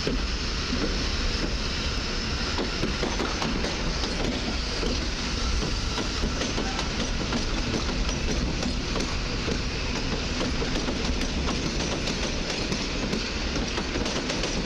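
Koleje Mazowieckie EN57 electric multiple unit pulling out and rolling past, a steady rumble of running noise with wheels clacking repeatedly over rail joints and points.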